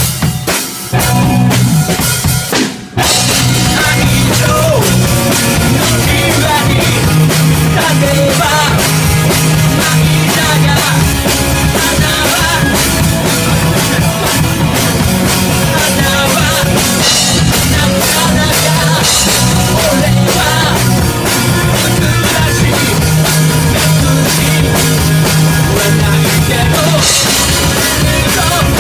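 Rock band playing an instrumental stretch of a song, the drum kit driving it along over a steady low part; the band stops sharply twice in the first three seconds before playing on.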